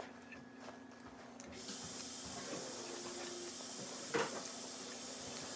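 A steady hiss comes in about two seconds in and holds, with one short sharp click or smack about four seconds in.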